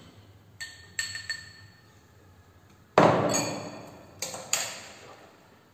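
Spoon and bowls clinking: a few light clinks, then a loud clatter about three seconds in that rings on for over a second, and two more clinks after it.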